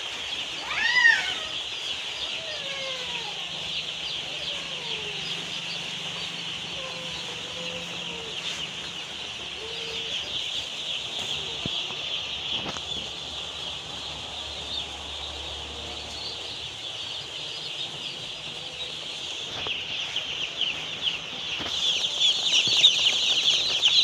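A large flock of broiler chicks peeping all at once, a dense, unbroken chorus of high cheeps that grows louder near the end.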